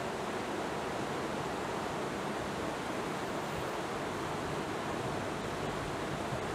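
Water rushing and churning steadily through a concrete dam fish ladder.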